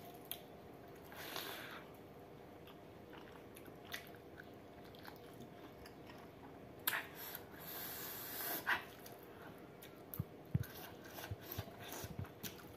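Close-miked chewing and wet mouth sounds of a person eating rice and pork curry, with scattered smacking clicks, busier near the end. A short hiss and two sharper clicks come about halfway through.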